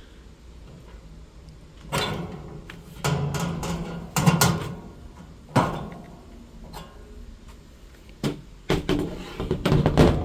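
Handling noise: a series of knocks and clunks, the loudest about four seconds in and a cluster near the end.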